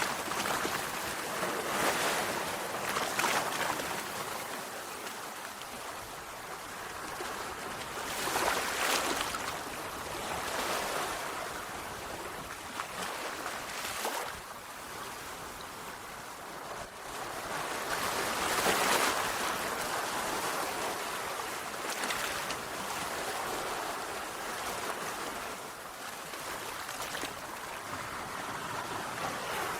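Sea waves breaking on a shore, a steady wash of surf that swells into louder breakers every few seconds and then falls back.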